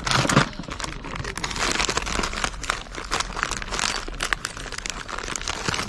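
Continuous crinkling and crackling with many small sharp clicks, the sound of things being handled, like packaging or parts being rummaged through.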